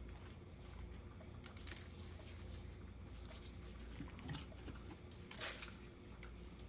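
Gloved hands handling a raw turkey and a seasoning container: a few short, faint clicks and rustles, the loudest about two-thirds of the way through, over a low steady background hum.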